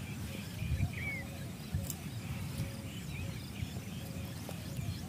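Outdoor ambience: scattered bird chirps and short calls over a low rumble of wind on the microphone.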